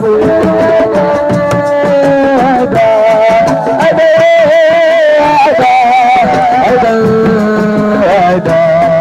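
Live Senegalese assiko band music: a lead voice sings long, wavering melodic phrases over hand drums.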